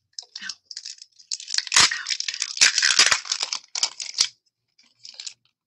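Clear plastic craft packaging crinkling and crackling as hands handle it, with a few light crackles at first, then a dense burst of crinkling from about a second in that stops after about four seconds.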